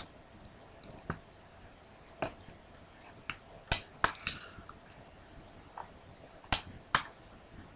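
Computer mouse clicking: about a dozen short, sharp clicks at irregular intervals, some in quick pairs, the loudest a little before the middle and again two-thirds of the way through.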